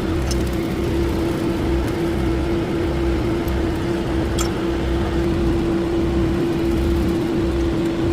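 A machine running steadily, with a constant droning tone over a low, pulsing rumble, and a faint click about four seconds in.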